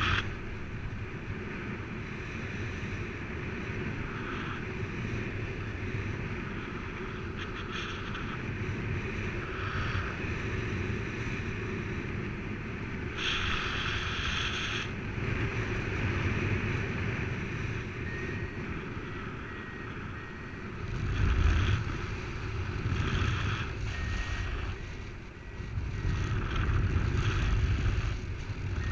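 Wind rushing and buffeting over the camera microphone in paraglider flight, with low gusts that swell a few times in the second half. From about two-thirds of the way in, faint high electronic beeps repeat in short broken tones.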